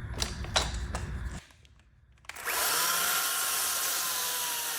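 A few knocks and handling clicks, then a brief hush, and an electric shop machine motor starts about halfway through. Its whine settles slightly in pitch as it comes up to speed, then it runs steadily.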